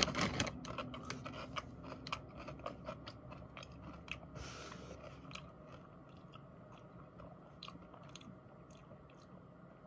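A person chewing a mouthful of crunchy popped potato chips (Popchips barbecue). The crisp crunches come thick and loudest at first, then thin out and fade as the chip is chewed down.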